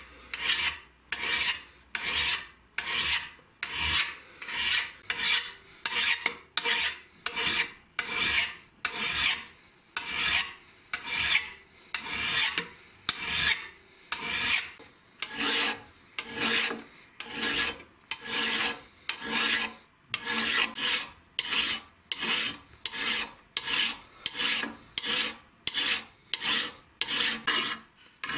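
Flat hand file rasping across a metal vise jaw in steady, even strokes, about three every two seconds.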